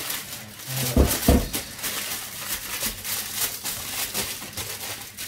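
Aluminium kitchen foil crinkling and crackling as hands press and smooth it into a round pan, with two dull thumps about a second in.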